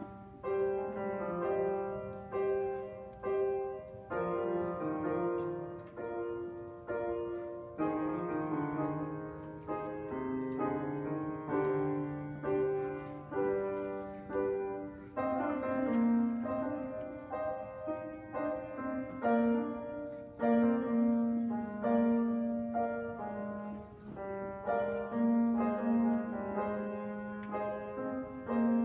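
Grand piano played solo: a steady run of melody notes and chords, each struck and then fading, over low bass notes.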